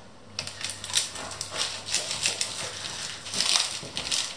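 A knife sawing through a freshly baked puff-pastry braid. The flaky crust crackles and crunches in a quick, uneven run of crisp crackles that starts about half a second in.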